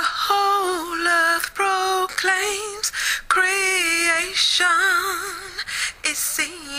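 A woman singing long, wavering notes with strong vibrato in short phrases, with a few sharp percussive hits between them.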